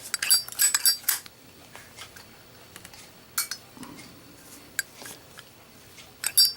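Zippo windproof lighter with a steel insert being handled, its hinged metal lid clicking open and snapping shut. A cluster of sharp metallic clicks comes in the first second, then a few light ticks, and more clicks near the end.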